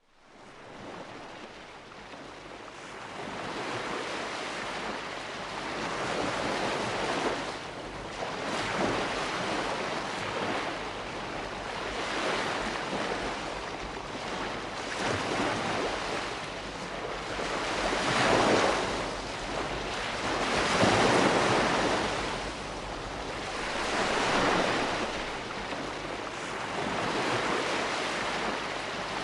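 Calm sea washing onto a shore: gentle waves break and recede in slow, overlapping swells every few seconds, fading in at the start.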